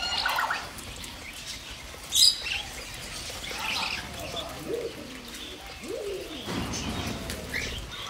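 Mixed aviary birds, small parrots such as budgerigars, cockatiels and lovebirds along with pigeons and doves, chirping and calling at once. A sharp high call stands out about two seconds in, and a lower call slides down in pitch near the end.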